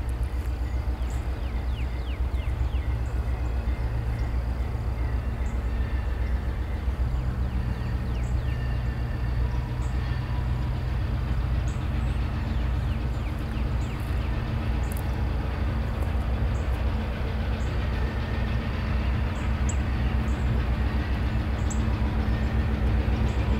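EMD GP9 diesel-electric locomotive with a 16-cylinder two-stroke 567 engine approaching slowly, its engine running with a steady low drone. The engine note steps up about seven seconds in, and the sound grows louder near the end as the locomotive closes in.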